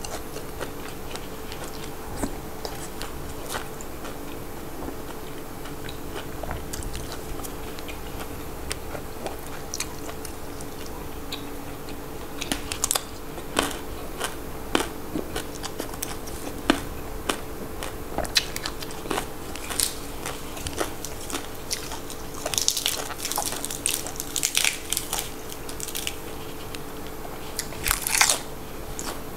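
Close-up eating sounds: a person biting and chewing crisp raw vegetables dipped in chilli dip, with sharp crunches that come in bunches, thickest about halfway through and again near the end.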